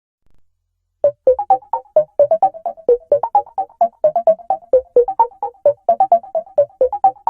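iPhone ringtone playing: a quick, repeating melody of short, sharply struck synth notes, about four a second, starting about a second in after a moment of silence.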